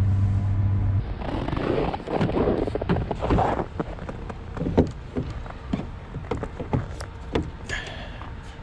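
A steady low hum inside the car cuts off about a second in. Then come the handling sounds of a Tesla Supercharger cable being unplugged and its connector hung back on the charging post: rustling and movement, with several sharp plastic knocks and clicks.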